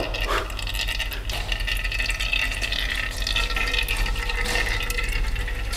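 Gear oil dripping and trickling thinly from the rear differential drain hole into a plastic measuring jug, over a steady background hiss. The flow is feeble because a stopper inside the drain hole is still holding the oil back.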